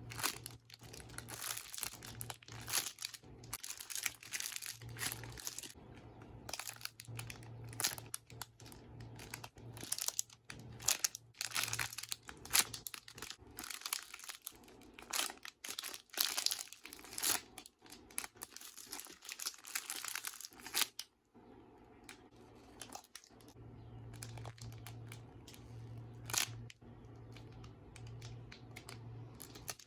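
Squishy toys in crinkly plastic packaging being handled up close, with irregular crinkling and rustling over a low steady hum. The handling eases off for a couple of seconds a little past two-thirds of the way in.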